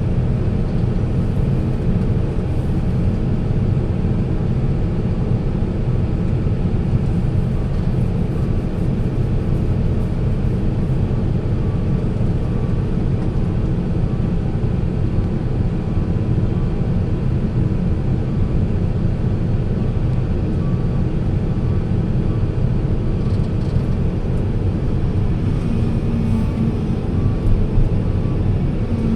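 Diesel engine of heavy earthmoving machinery running steadily with a deep, low drone.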